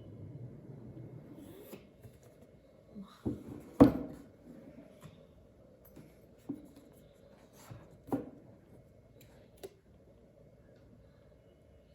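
Hands handling cardboard packaging and its contents: soft rubbing and rustling with several sharp knocks as pieces are set down, the loudest about four seconds in.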